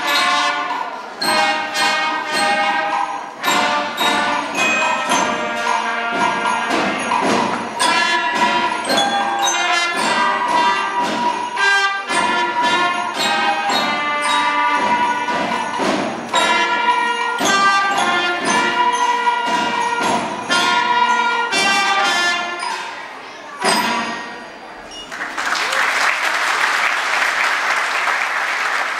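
School wind band of flutes, trumpet and other winds playing a Christmas piece through to its final notes. Near the end the music stops and the audience breaks into applause.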